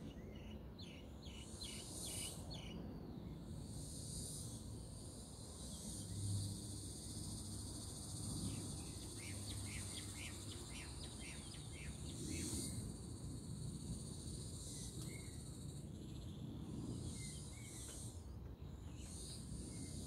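Steady high-pitched insect drone, with a small bird's quick runs of short chirps near the start and again midway, and brief hissy bursts every couple of seconds.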